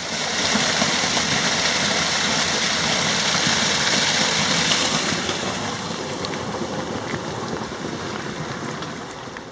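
Small waterfall of rainwater runoff, about three feet high, pouring over rock: a steady rush of falling water that fades gradually over the second half.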